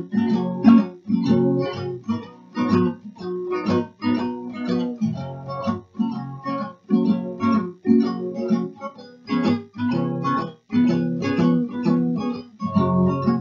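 Acoustic guitar strummed in a steady rhythm with no singing, in the instrumental break between the chorus and the next verse.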